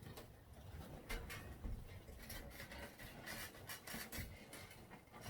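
Scattered light clicks, knocks and rubbing of a decorative piece being handled and turned around.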